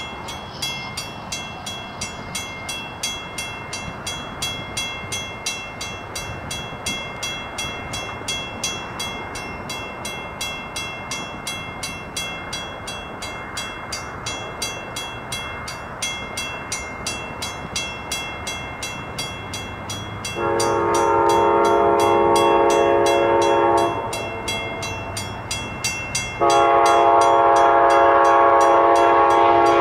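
Grade-crossing bell ringing steadily while the warning lights flash. An approaching train's locomotive horn sounds a long blast about two-thirds of the way in, then a second long blast near the end, as the train nears the crossing.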